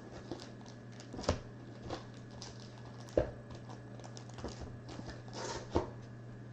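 Light handling noise: scattered small clicks and rustles with three sharper knocks, about two seconds apart, over a steady electrical hum.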